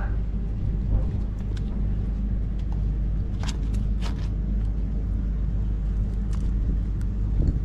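Steady low rumble, with a few sharp clicks and ticks about three and a half and four seconds in as a freshly caught Australian salmon is unhooked by hand.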